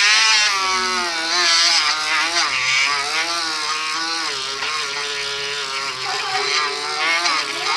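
Electric motor spinning a polishing brush against an etched copper piece, running steadily with its pitch wavering up and down as the metal is pressed onto the brush. The brush is running without polishing compound.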